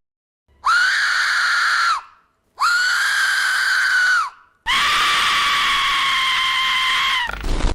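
A high-pitched, scream-like shriek held three times: two of about one and a half seconds, then a longer one of about two and a half seconds. Each holds one pitch and bends at its start and end, with silence between them.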